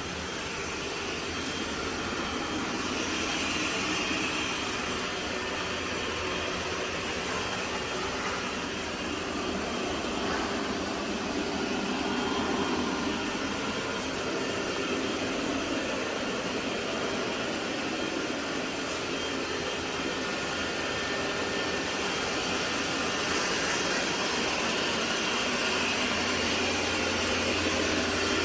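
Roborock S8 MaxV Ultra robot vacuum running with a steady whir and a low hum, the hum growing a little louder near the end.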